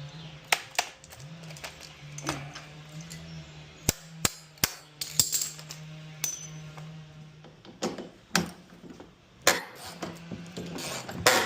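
Sharp clicks and clanks of hand tools and washer parts being handled during disassembly: about ten separate knocks, irregularly spaced, over a low steady hum.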